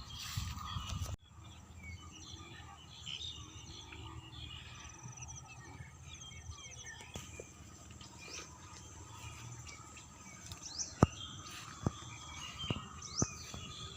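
Rural outdoor ambience of small birds chirping and insects trilling in short pulsed bursts. About a second in, a rough noise cuts off abruptly, and near the end a few sharp taps stand out.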